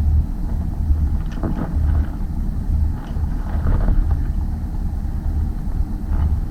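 Wind buffeting the microphone on open water: a loud, low, irregularly gusting rumble.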